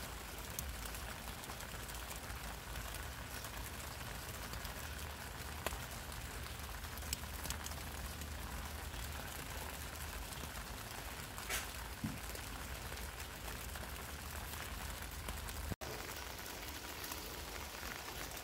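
Light rain falling steadily on black plastic mulch film, with a few faint ticks.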